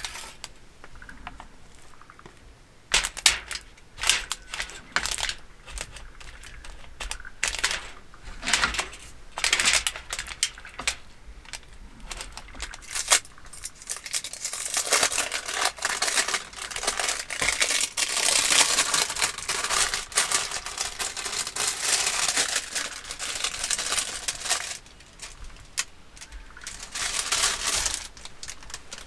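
Thin plastic wrapper crinkling and rustling as food is unwrapped by hand, with scattered light clicks and taps of handling at first and a long, dense stretch of crinkling through the middle and again near the end.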